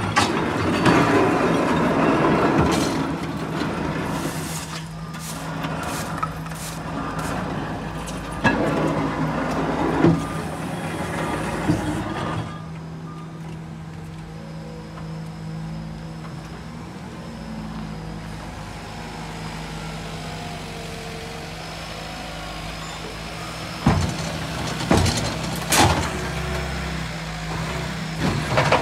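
Garbage truck running steadily, with loud clattering and knocking over the first twelve seconds or so, then quieter steady running; a few sharp bangs near the end.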